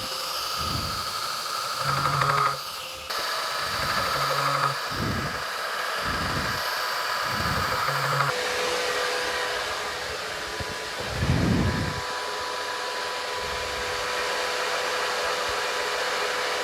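2x72 belt grinder running with a steady whirring hiss while the ends of the pinned handle scales are ground flush.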